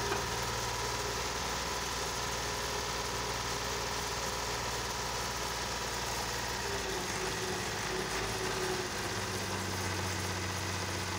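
Tractor diesel engine running steadily, powering the hydraulics that tip a loaded trailer; its note shifts slightly about seven seconds in.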